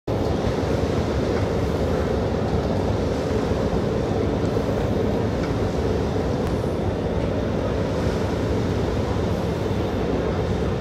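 Steady engine drone from military river boats under way, mixed with the wash of water.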